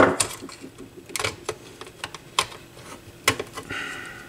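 A few separate sharp clicks and taps of small plastic and metal parts being handled, as the front control-panel assembly of a Philips 212 turntable is worked loose by hand.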